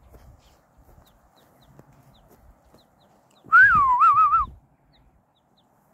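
A herder's loud whistle to the flock of sheep and goats, about a second long, starting about three and a half seconds in: one note sliding down, then three quick warbles.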